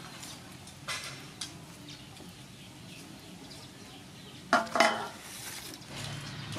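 Pieces of sliced pork skin handled and shifted on a woven bamboo tray: a few faint clicks, then two loud clattering knocks close together about four and a half seconds in.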